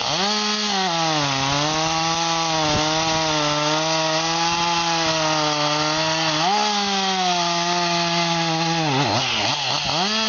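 Chainsaw cutting into wood, its engine pitch held low and steady under load. The pitch steps up about two-thirds of the way through, then drops twice and revs back up near the end.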